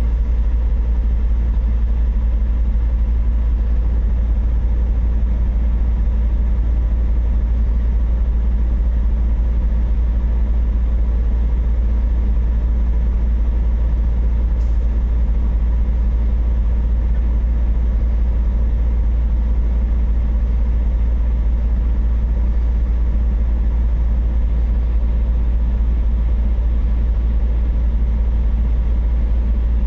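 Semi truck's diesel engine idling, a steady low rumble heard from inside the cab, with one faint click about halfway through.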